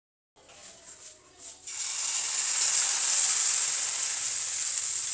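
Rava and rice-flour uttapam batter sizzling on a hot, oiled iron tawa. A few faint clicks come first, then from about two seconds in a loud, steady high hiss holds.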